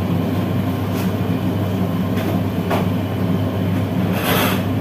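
Commercial kitchen extraction hood fan running with a steady low hum. A short rustle comes near the end.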